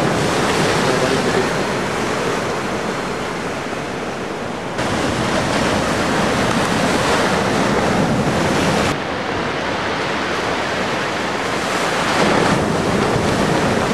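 Ocean surf breaking and rushing, with wind buffeting the microphone; the noise shifts abruptly twice, about five and nine seconds in.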